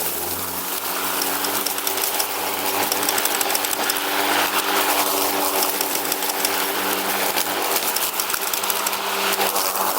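Riding lawn mower running steadily: a droning engine note with a broad hiss over it. The engine note shifts just as it begins, then holds steady.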